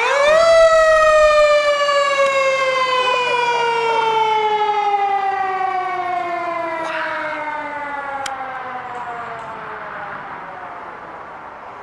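Fire engine's mechanical siren, winding up briefly and then coasting down in one long, slowly falling wail that fades away over about ten seconds.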